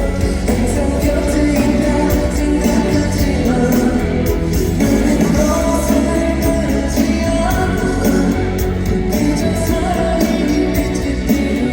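Live pop-rock song with a male lead vocal over a band, with a steady drum beat throughout.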